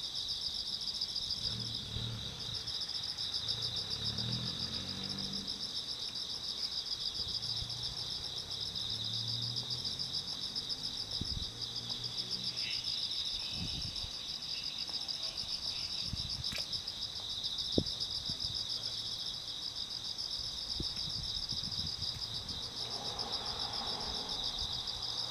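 Crickets chirping in a steady, high, finely pulsing chorus, over a faint low rumble with a few soft clicks.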